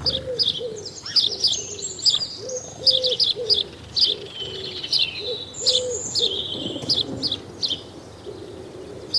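Birds singing: many quick high chirps and trills over a low, repeated cooing.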